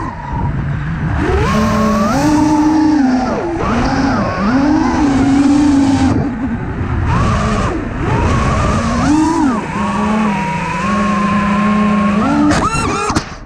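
iFlight Nazgul5 V2 five-inch FPV quadcopter's motors and propellers whining, the pitch rising and falling as the throttle changes. Near the end comes a brief burst of clattering as the spinning props strike leaves in a crash into a fig patch, and the motor whine breaks off.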